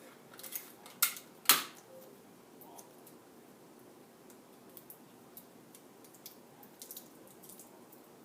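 Handling noise from hands working on a paper craft: two sharp clicks about a second and a second and a half in, then faint scattered ticks.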